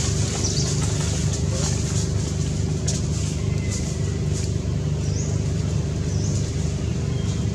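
Steady low rumble of background noise, with two faint, brief rising chirps at about five and six seconds in.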